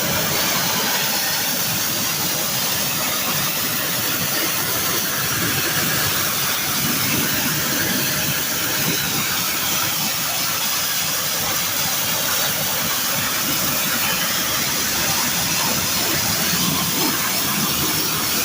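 Steady, loud hissing spray of a pressure-washer water jet washing an air conditioner, switched on suddenly just before and running without a break.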